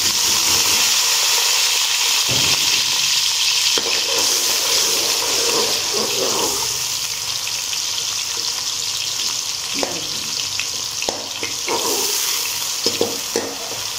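Chopped onions sizzling in hot oil in an aluminium pot, stirred with a metal spoon that scrapes and clicks against the pot now and then.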